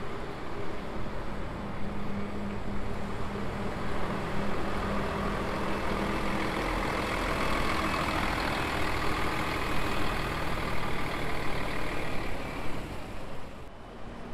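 City bus engine running as the bus drives past, a steady hum with a low tone that fills out in the middle. The sound cuts off suddenly just before the end.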